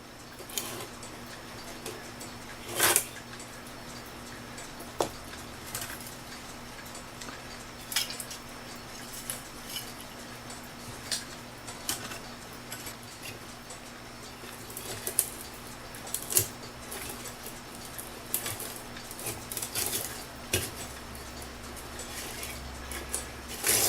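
Mainspring of a Seikosha schoolhouse clock movement being wound up with a key, giving irregular metallic clicks and clinks as the click ratchet catches and the key and screwdriver work against the movement.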